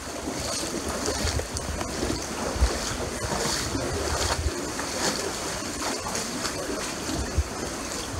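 Muddy floodwater sloshing and splashing as someone wades through it, with a few short low thumps, the loudest about two and a half seconds in.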